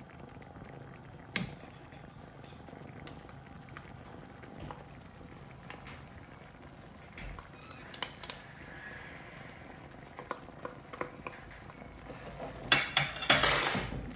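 Kidney bean dhaal bubbling softly as it simmers in a frying pan, with a few sharp knocks of a metal potato masher against the pan. Near the end comes a louder scraping stir through the thick sauce with a wooden spoon.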